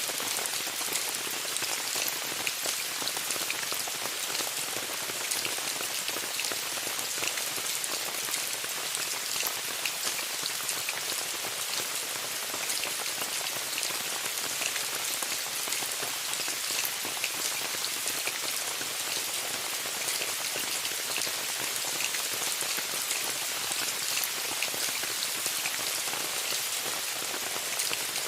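Steady rain falling on a tent, an even hiss with many small separate drop ticks throughout.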